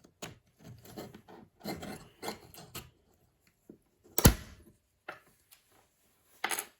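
A small electric fan being prised open by hand and with a tool: a run of short scrapes and clicks, one sharp knock about four seconds in, and another short scrape near the end.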